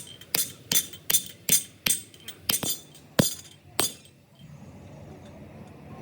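A hammer striking metal in quick, even blows, about three a second with a bright ringing clink, during a transmission rebuild. The blows stop about four seconds in.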